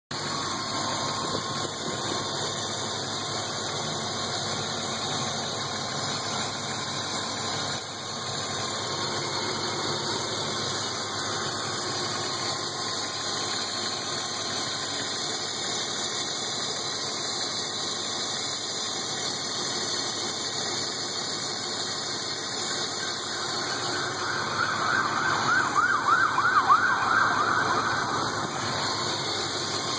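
BMW E36 325i's 2.5-litre inline-six engine idling steadily. Near the end a rapid warbling, siren-like sound rises over it for a few seconds and is the loudest thing.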